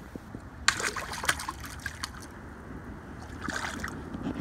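Small splashes and trickling water as a small bass is lowered into the water by hand and released. There is a cluster of splashes about a second in and a shorter one near the end.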